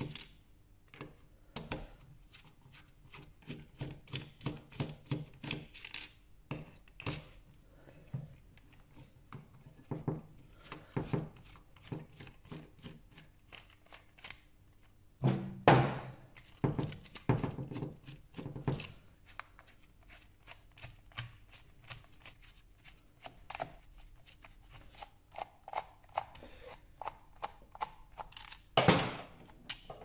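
Small clicks, taps and scrapes of a T8 Torx screwdriver working screws out of a hard plastic control-unit housing, with handling noise. There is a louder knock about halfway through and another near the end.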